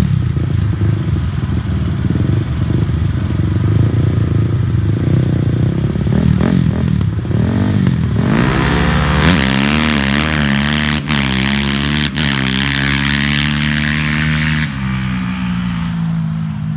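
A side-by-side UTV and a sport quad ATV idling and blipping their engines at the starting line. About eight seconds in they launch together, engines revving hard and loud, with two brief dips in the sound. The engine noise then fades as they run off down the track.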